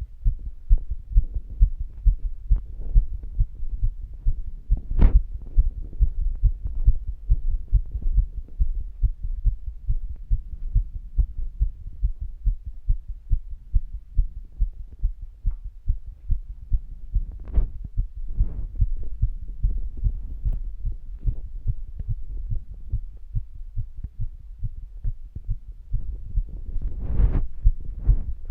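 A human heartbeat recorded against the chest, beating steadily and evenly at about two beats a second, a quick pace for someone active. A sharp knock about five seconds in and a louder bump near the end stand out over the beats.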